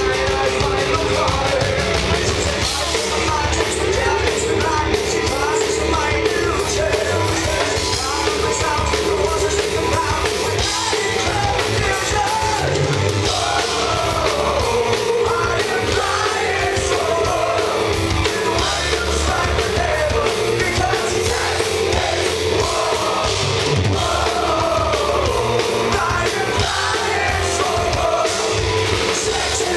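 Live heavy metal band playing loud and steady: distorted electric guitars, bass and drums, with a male lead singer's wavering vocal line on top.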